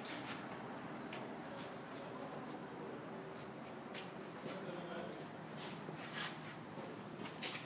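Crickets chirping steadily in the background, with a few faint taps and clicks here and there.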